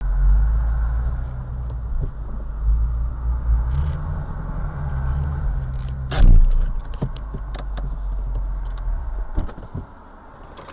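Shelby GT350's 5.2-litre flat-plane-crank V8 idling with a steady low rumble, with a few light clicks and one brief loud burst about six seconds in. The rumble falls away about nine and a half seconds in.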